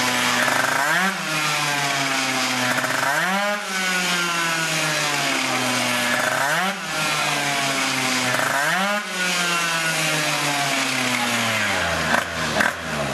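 Racing scooter's two-stroke engine revved on its stand in four sharp blips, each time the revs shooting up and then slowly falling away. Near the end the revs drop to a low, uneven idle.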